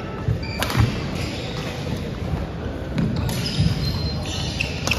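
Badminton rally on a wooden gym floor: sharp racket strikes on the shuttlecock a few times, with short squeaks of court shoes and thudding footsteps, echoing in the large hall.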